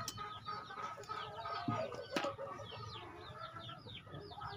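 Birds chirping continuously with chickens clucking in the background. Two sharp clicks, one at the start and one about two seconds later, from a screwdriver working a small metal trigger part and spring.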